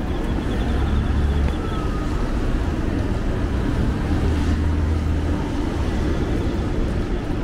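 City street ambience on wet pavement: a steady hiss of wet roads with low rumbles of passing traffic, loudest about a second in and again around four to five seconds in.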